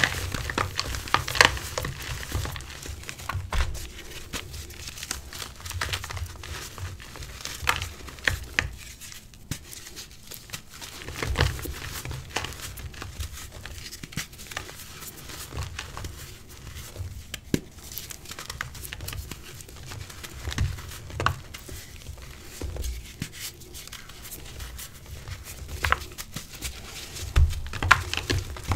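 Hands squeezing and crumbling soft blocks of pink gym chalk and reformed chalk pieces: irregular soft crunches and powdery crumbles, with dull low bumps now and then.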